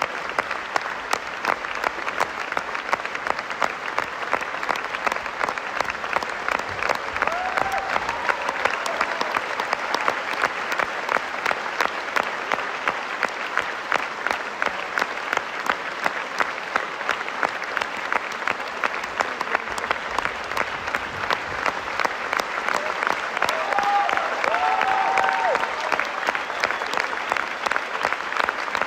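Theatre audience applauding steadily, with the louder claps falling into an even shared beat over the general clapping. A few voices call out briefly, once about seven seconds in and again later on.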